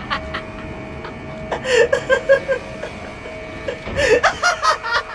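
A man laughing in quick choppy bursts, a run about a second and a half in and another near the end: the Joker's giggling laugh, over a steady held music note.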